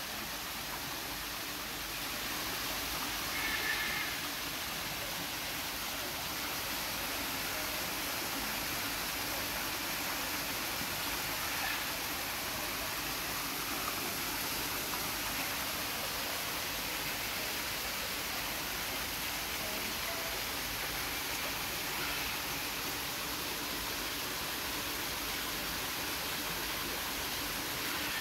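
Steady rush of water from a small rock waterfall pouring into a koi pond. A brief high-pitched call is heard once, three to four seconds in.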